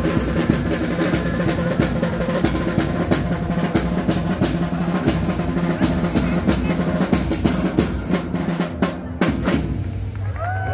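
Traditional Calabrian street drums (tamburi) played in a fast, rolling rhythm of the kind that accompanies the dancing giganti. The drumming stops about nine seconds in.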